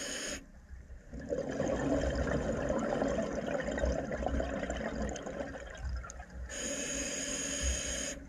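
Scuba breathing heard underwater through a demand regulator. A short inhalation hiss is followed by a few seconds of rumbling exhaled bubbles, then a second inhalation hiss near the end.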